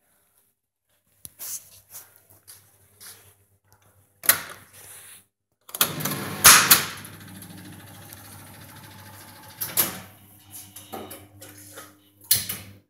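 Seeburg S100 Phonojet jukebox being operated: sharp clicks of its selection keys being pressed, then its record-changing mechanism running with a steady whirr for several seconds over a low hum. A few more mechanical clicks follow.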